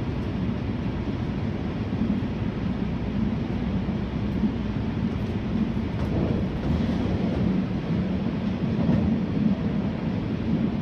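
485-series electric train running along the line, a steady rumble of wheels on rail and running gear heard from the front cab.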